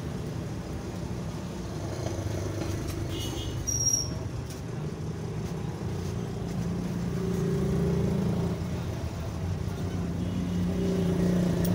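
Steady engine rumble of passing road traffic, swelling about two-thirds of the way in and again near the end, with a brief high-pitched sound about four seconds in.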